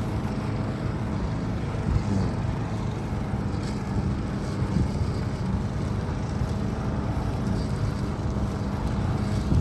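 A vehicle running steadily: a constant low engine rumble with a faint steady hum throughout.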